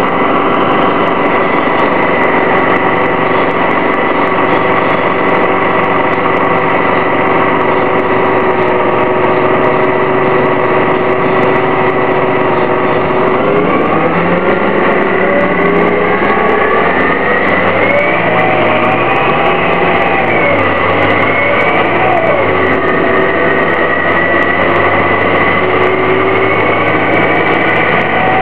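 2004 Orion VII CNG transit bus with a Detroit Diesel Series 50G natural-gas engine and ZF Ecomat automatic transmission, idling steadily, then pulling away about thirteen seconds in. Its engine and drivetrain whine rises in pitch, with two brief drops as the transmission shifts up.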